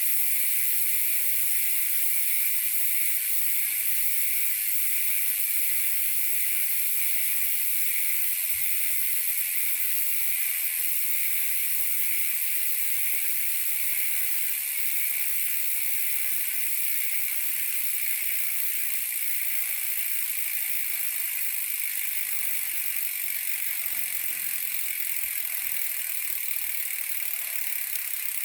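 Speedone Soldier six-pawl bicycle hub freewheeling: the pawls clicking so fast over the ratchet that they blend into a steady high buzz, easing off slowly as the wheel coasts.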